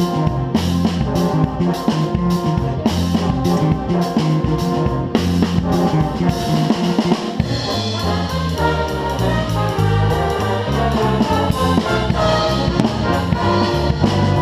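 Big jazz band playing live: trumpets and trombones over a drum kit. Sharp drum hits punctuate the first half, then the brass holds longer chords to the end.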